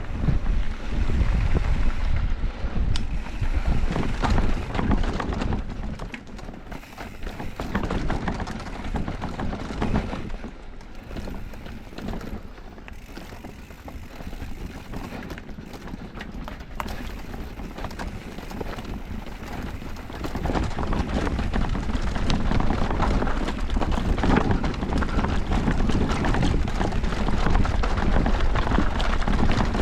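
Wind rushing over a GoPro's microphone, with an electric mountain bike's tyres and frame rattling over a rough dirt downhill trail. The rush drops for a stretch in the middle, then picks up and stays loud from about two-thirds of the way in.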